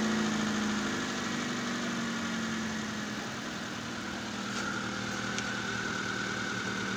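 Hyundai Getz four-cylinder petrol engine idling steadily just after its first start with a newly fitted timing belt and tensioner. The idle settles slightly lower about a second in and again about three seconds in, and a faint high whine joins about four seconds in.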